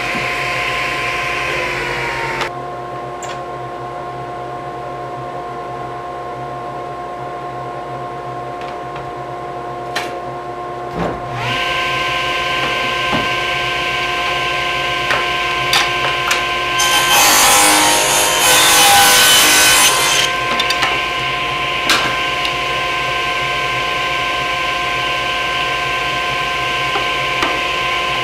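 Table saw running with a steady whine from its spinning blade. About seventeen seconds in, the blade cuts through a strip of wood for roughly three seconds.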